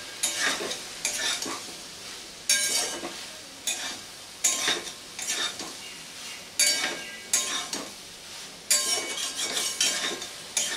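Metal spatula scraping and knocking against a metal kadai as soya chunks and potatoes are stirred in spiced oil, about a stroke a second or a little faster, some strokes ringing briefly. The frying sizzle runs underneath.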